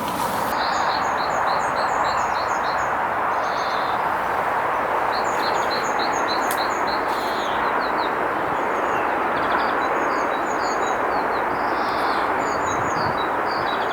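A small songbird singing runs of quick, high chirps, several phrases in a row, over a steady, even rushing noise of wind.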